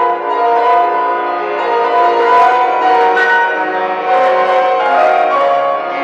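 Live classical concert music: sustained chords, with the notes changing every half-second or so.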